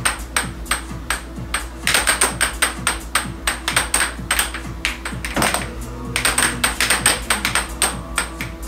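Air hockey puck clacking rapidly off the hard plastic mallets and table rails in three fast flurries with short lulls between, over the steady low hum of the table's air blower.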